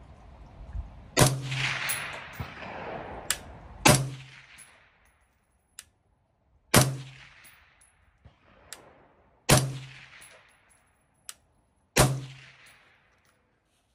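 Five suppressed rifle shots, about two and a half seconds apart, each trailing off in an echo. They come from a 14.5-inch AR-15 short-barreled rifle fitted with a titanium, flow-through Dead Air Ventum suppressor.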